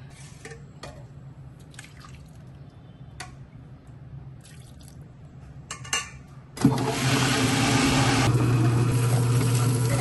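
A few light clicks and knocks, then about two-thirds of the way in a wet grinder switches on suddenly and runs loudly and steadily: a low motor hum under a wet grinding noise as its stones work soaked urad dal into batter.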